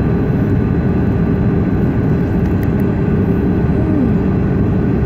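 Steady loud roar of a vehicle in motion, with a constant low hum running through it.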